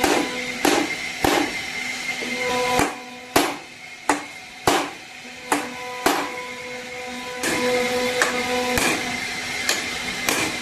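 Repeated hammer blows, roughly one every half second with a few pauses, over a motor's steady hum that starts and stops.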